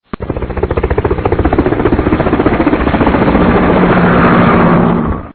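An engine running with a rapid, even chugging, growing louder over the first few seconds; it starts and stops suddenly.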